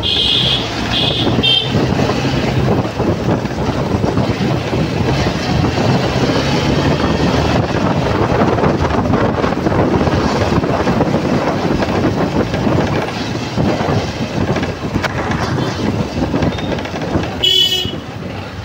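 Motorcycle riding in slow street traffic: steady engine and road noise. A few short horn beeps sound at the start, and a horn sounds again near the end.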